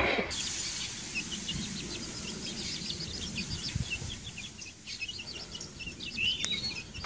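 Young domestic chicks peeping: a steady run of short, high peeps at several a second, with one louder, longer peep near the end.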